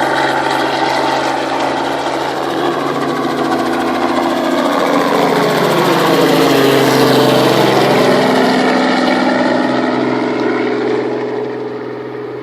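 Helicopter's engine and rotors droning steadily at takeoff. The sound grows louder toward the middle, its tones sweeping down and back up, then fades near the end as the helicopter moves away.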